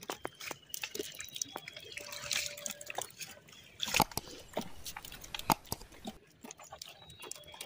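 Pond water splashing and dripping as a fishing net is hauled by hand through the shallows, in irregular small splashes with a sharper one about four seconds in.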